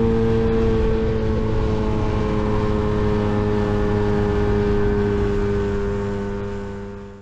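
Lambretta GP125 scooter's single-cylinder two-stroke engine running hard near its top speed, the note dropping slightly as the speed eases from about 62 to 55 mph, over wind rush. The sound fades out near the end.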